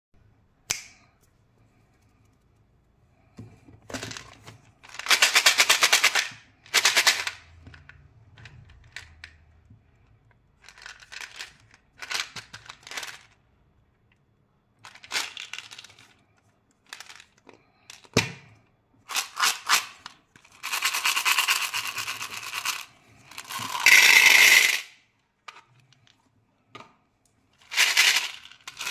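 Hard-shelled Skittles candies rattling in a plastic tub and pouring into a bowl in repeated bursts of rapid clicking, with the tub and packaging being handled between bursts.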